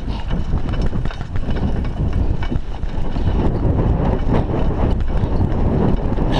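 Raleigh Ascent mountain bike rolling over a rough dirt track: a steady tyre rumble with the bike rattling and clicking over the bumps, picked up through a chest-mounted camera.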